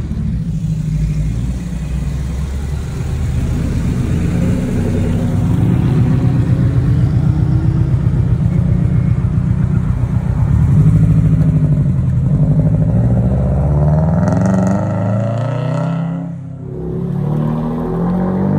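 Sports car engines running at low speed as the cars pull out and drive off, a deep steady engine note for most of the stretch. Near the end a car accelerates away, its engine note rising in pitch more than once.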